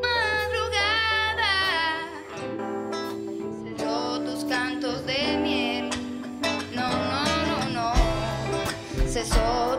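Band music: a woman singing with vibrato over a strummed acoustic guitar and low sustained bass notes, in three sung phrases. Deep drum thumps come a few times near the end.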